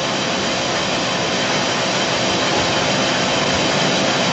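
A steady, loud rushing noise with no pitch or rhythm, holding evenly throughout.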